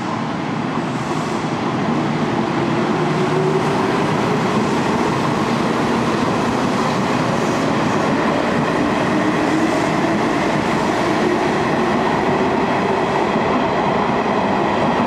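Nishitetsu electric train running past along the station platform: a steady rumble of wheels on rail and running gear, building in the first couple of seconds, with a faint motor whine rising slowly in pitch twice.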